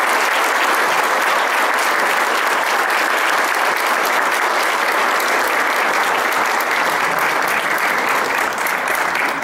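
Audience applauding: dense, steady hand-clapping.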